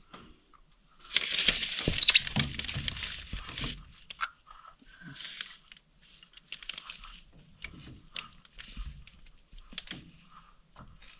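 Scraping and rustling for about three seconds, loudest about two seconds in, then scattered small clicks and knocks: hands and tools being handled during repair work on the cabin's wood framing.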